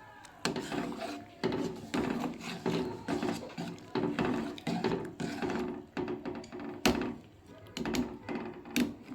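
Repeated scraping and rubbing strokes of a spatula stirring in a cooking pot, with a couple of sharp knocks against the pot.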